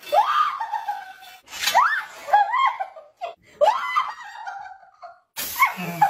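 A person gasping and shrieking with startled laughter: about five short cries that each rise sharply in pitch. A short burst of hiss near the end.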